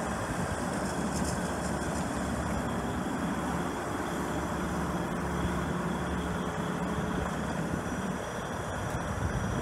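Bobcat 442D mini excavator's diesel engine running steadily while the upper structure swings round on its hydraulics, with a steady hum that comes in about a third of the way through.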